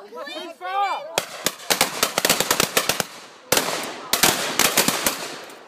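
Voices call out, then a line of shotguns opens fire at balloons in the sky: a ragged volley of dozens of shots in quick succession, a short lull, then a second burst of rapid shots.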